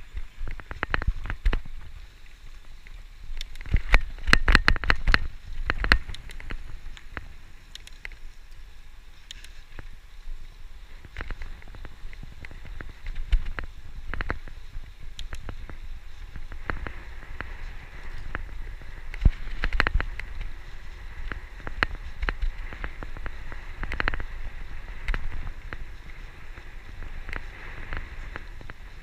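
Road bike being ridden on a tarmac road, with rattles and knocks from road bumps and wind rumble on the microphone. A cluster of heavy jolts about four to six seconds in comes as the wheels cross railway tracks.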